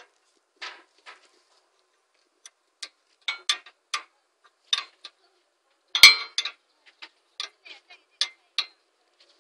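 Steel wrench clinking against bolts on a wood crusher's blade mount as the bolts are turned: irregular sharp metallic clicks, with the loudest clank about six seconds in.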